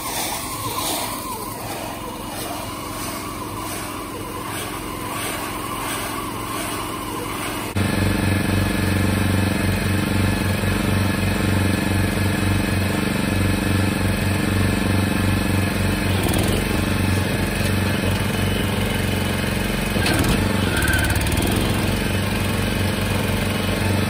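Small gasoline engine of a Salsco round bale wrapper running steadily while a bale is being wrapped. At first it is quieter, with a regular pulse a little faster than once a second, then it becomes suddenly louder and closer about eight seconds in.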